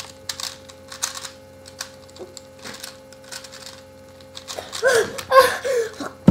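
A 3x3 Rubik's cube clicking as its layers are turned quickly in a speedsolve. In the last couple of seconds a loud strained voice comes in as the solver, who has been holding his breath, finishes and starts breathing.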